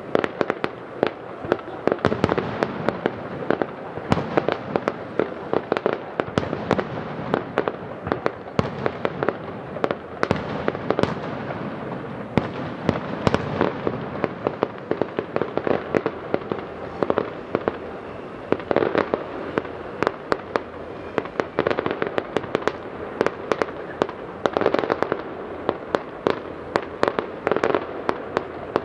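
Fireworks display heard from about 700 m away: a dense run of sharp shell bursts and bangs, several a second, over a continuous background of overlapping reports.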